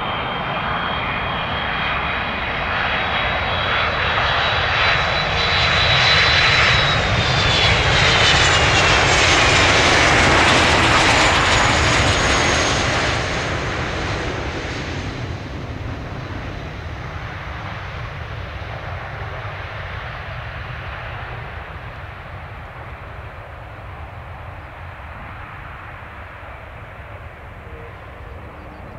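Jet airliner passing close by: its engine noise swells to a peak about ten seconds in, with a high whine that drops in pitch as it goes past, then fades into a dwindling rumble.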